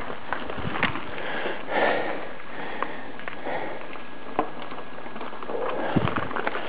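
Mountain bikes rolling along a dirt trail: a steady rush of tyre and trail noise with scattered small clicks and knocks, and a louder knock about six seconds in as a rider comes close.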